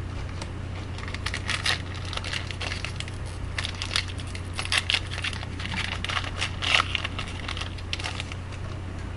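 A hockey card pack's wrapper being torn open and crinkled: a run of crackling rustles from about a second in until near the end, over a steady low hum.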